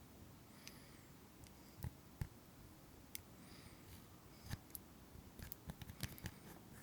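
Slime being handled and squeezed: faint, irregular sticky clicks and small pops, a dozen or so, loudest about two seconds in and again in a cluster near the end.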